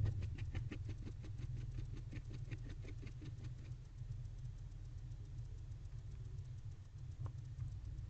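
Barn owl preening: a rapid, even run of small clicks and rasps, about seven or eight a second, as the beak nibbles through the feathers. The clicks fade after about three and a half seconds, with a single click near the end, over a steady low hum.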